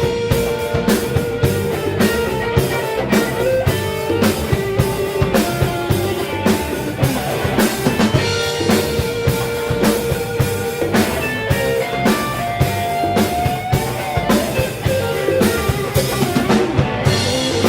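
Live blues band playing an instrumental passage: the drum kit keeps a steady beat under guitar playing long held lead notes.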